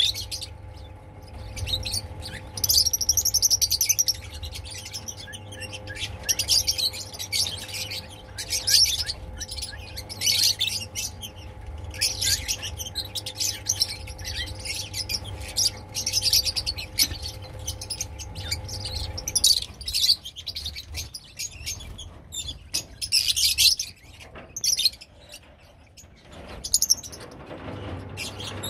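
A large flock of lovebirds, mostly Fischer's lovebirds, chirping and squeaking constantly in overlapping high calls. A steady low hum underneath stops about two-thirds of the way through.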